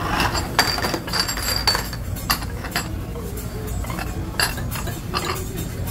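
Metal spatula and utensils clinking and tapping on a hibachi steel griddle in quick, irregular strikes, with one clink ringing briefly in the first two seconds.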